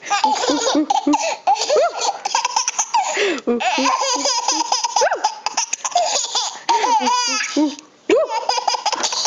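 A baby laughing hard in quick high-pitched bursts, breaking off briefly about eight seconds in before laughing again.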